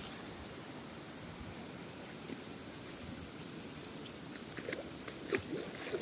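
Steady rushing of a forest waterfall, with a few short, sharper sounds near the end.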